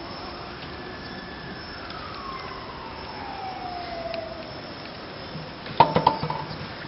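A siren wails once, its pitch slowly falling. About six seconds in comes a quick cluster of sharp clacks, the loudest sound.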